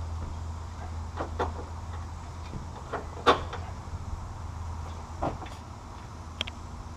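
Scattered metal clanks and knocks of tools and suspension parts being handled during rear shock replacement, about six in all, the loudest about three seconds in, over a steady low hum.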